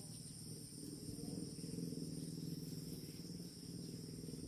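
Steady high-pitched chorus of insects in the rice fields, over a low rumble.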